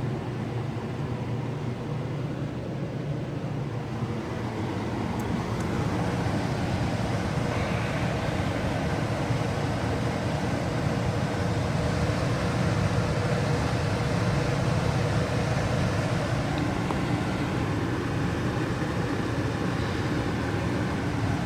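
Lennox gas furnace running steadily with its burners lit after the dirty flame sensor was cleaned: a low, even rumble from the burners and fans that grows slightly louder about six seconds in.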